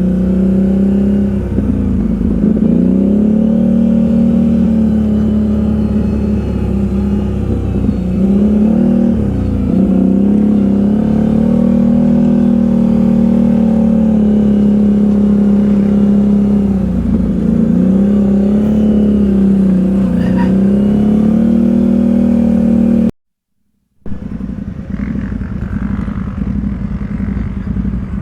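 ATV engine running under way, its note dipping and picking up again several times as the throttle is eased off and reopened. About 23 seconds in it cuts off for a second, and a lower, rougher engine sound follows.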